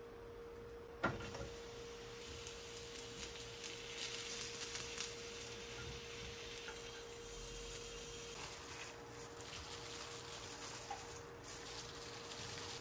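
Sliced shiitake mushrooms frying in an oiled pan, with a soft, fine sizzle and crackle. A single sharp click comes about a second in, and a faint steady hum runs underneath.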